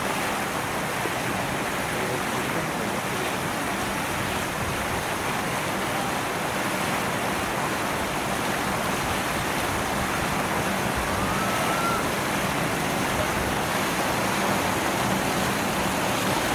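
Steady, even rushing noise that stays loud throughout, with a faint short rising whistle a little past the middle.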